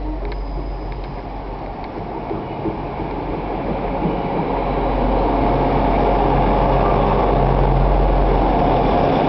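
Diesel multiple unit train's engines running in a dense mechanical drone with a steady low hum, growing louder about halfway through.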